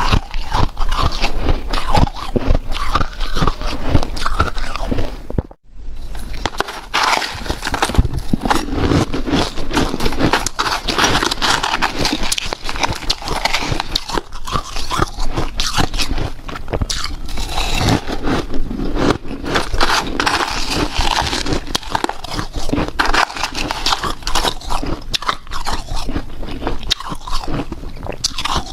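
Close-up biting and chewing of powdery, snow-like freezer-frost ice, a dense run of crunches that goes on without pause except for a brief break about five and a half seconds in.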